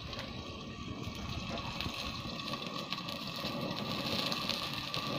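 Food sizzling in a glass-lidded frying pan over a wood fire in a tin-can stove, a steady hiss that grows a little louder, with fine crackling from the burning sticks.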